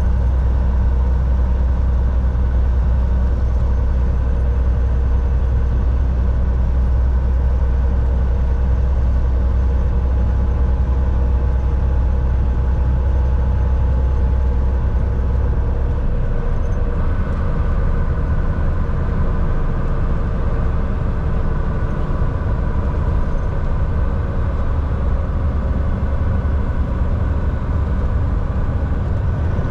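Volvo semi-truck driving on the road: a loud, steady diesel engine drone with road noise, which turns rougher about halfway through.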